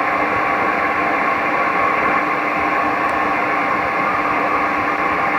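Shortwave receiver audio in AM mode: steady static hiss with several faint steady tones, the noise of an unidentified HF signal.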